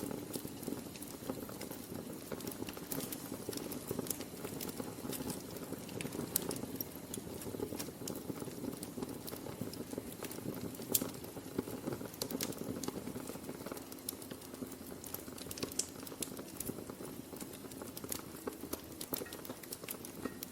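Wood fire burning in a fireplace: a steady low hiss of flame with frequent, irregular crackles and pops, a few of them sharper and louder than the rest.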